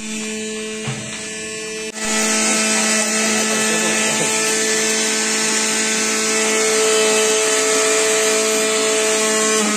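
Electric mixer grinder motor running at a steady high pitch. A hiss from the jar joins about two seconds in.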